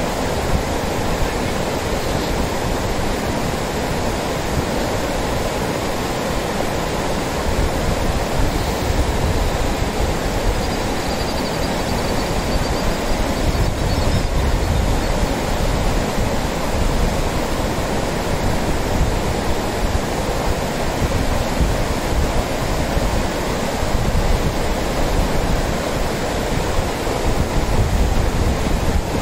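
Lidder River's shallow rapids rushing steadily over rocks and gravel, with a constant noise of churning water.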